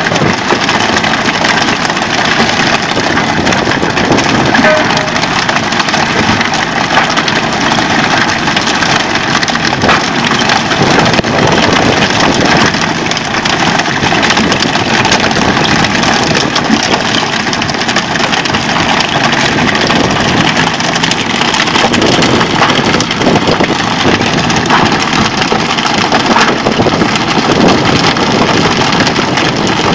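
Fishing boat's engine running under a loud, steady wash of sea and wind noise, with many short knocks and clatters as fish are swung aboard on poles and hit the deck.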